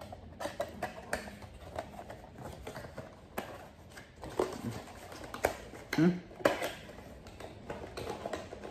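Cardboard Funko Pop box and its plastic insert being handled, giving scattered small clicks, taps and rustles, with a brief low sound about six seconds in.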